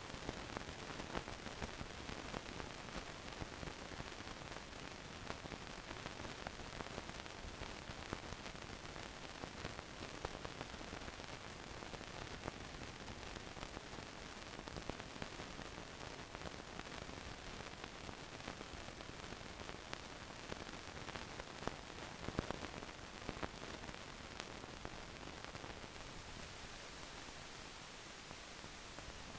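Steady hiss with faint scattered crackles and clicks, the surface noise of an old film soundtrack over a stretch with no recorded sound.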